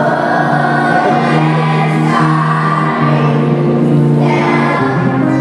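Music: several voices singing together over long held accompaniment notes.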